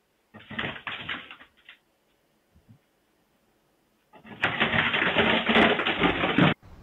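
Dogs scrambling on a wooden floor and a folding tray table being knocked over, heard through a security camera's thin-sounding microphone. There is a short burst of clatter about half a second in, then a longer, louder stretch of rattling and knocking from about four seconds in that cuts off suddenly.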